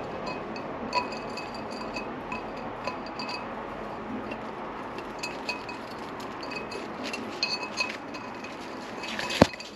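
A cockatiel tapping about inside a vase: a string of small irregular clinks, many of them leaving the vase ringing with a high tone, and one much louder knock near the end.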